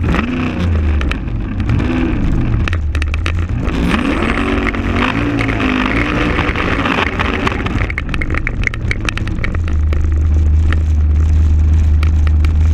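Holden VH Commodore's 6.2-litre LS3 V8 revving up and down during a burnout, the revs rising and falling several times in the first half. Near the end it settles into a steady, louder low drone.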